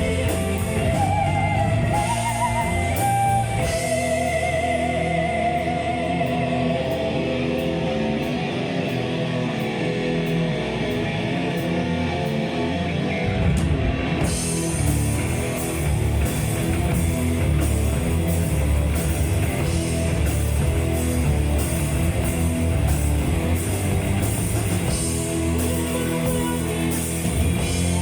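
Metal band playing live: an instrumental passage of electric guitars, bass and drums, with a wavering held lead line in the first few seconds and the cymbals coming in fully about halfway through.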